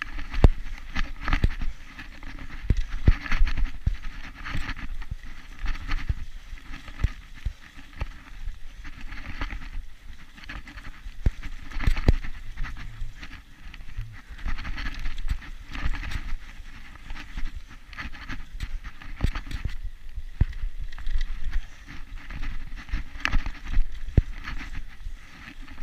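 Irregular knocks and rattles over a steady rushing noise, the sound of moving fast along a rough dirt trail.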